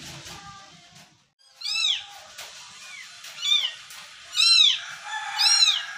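A young kitten mewing: a string of high-pitched mews about a second apart, each rising and then falling in pitch. Background music fades out about a second in, before the mews start.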